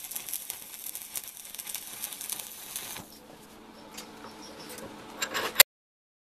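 Electric arc welding on the end of a twisted steel rod bundle clamped in a vise: the arc crackles and hisses for about three seconds, then stops. A few clicks and one sharp knock come near the end.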